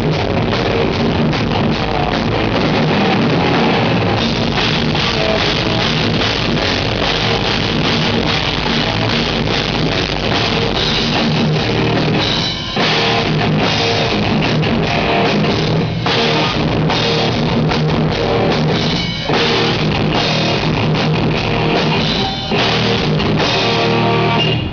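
Death metal band playing live and loud, with distorted electric guitars over a pounding drum kit. The band makes short stops about halfway through, again a little later, and once more near the end.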